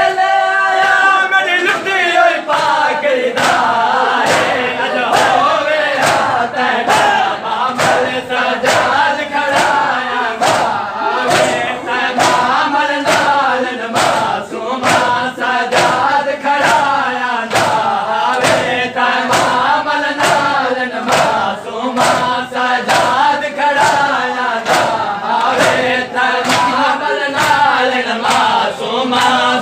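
A group of men chanting a noha (mourning lament) in unison, with rhythmic chest-beating (matam) striking about one and a half times a second.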